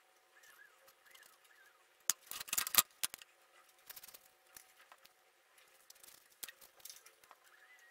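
Light clicks and knocks of thin wooden strips being handled and set down on a wooden workbench, with a quick cluster of louder knocks about two to three seconds in.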